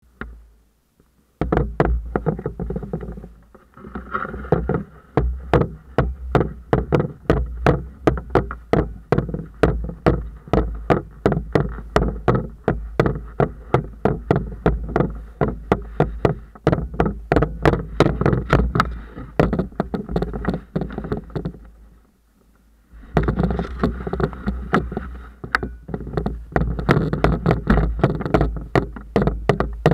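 Sea kayak under way, heard through a camera mounted on its foredeck: rapid sharp knocks, about three a second, over a low rumble. The knocking starts about a second and a half in and stops briefly around 22 seconds.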